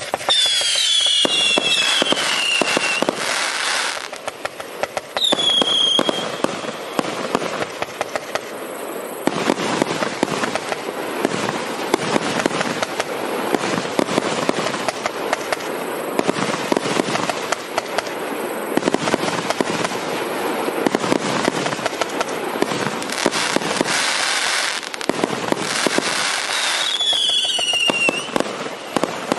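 A 138-shot firework cake firing continuously: a dense run of rapid bangs and crackling. Falling whistles sound near the start, about five seconds in, and again near the end.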